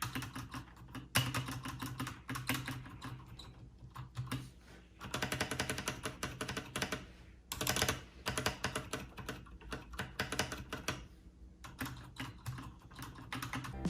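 Typing on a Keychron K2 mechanical keyboard with Gateron Red linear switches: quick runs of keystroke clicks broken by short pauses, with a lull about four and a half seconds in.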